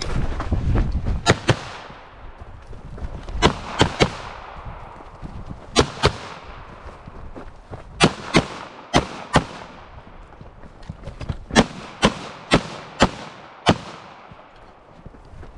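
Pistol shots fired at targets, about seventeen in all, mostly in quick pairs a fraction of a second apart, the pairs spaced one to two seconds apart, each shot trailing a short echo.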